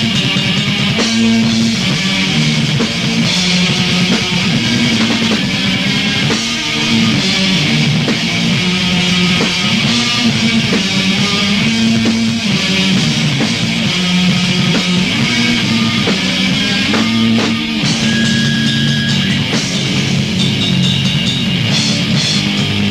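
Raw rehearsal recording of early Norwegian black metal: a distorted electric guitar riff over a drum kit, played as one continuous passage.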